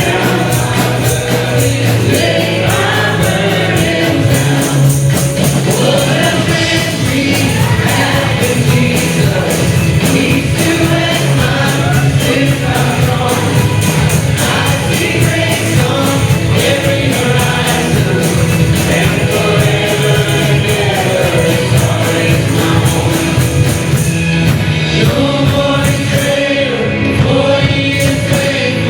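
Church worship music: a choir or congregation singing a gospel-style song over instrumental backing with a steady beat.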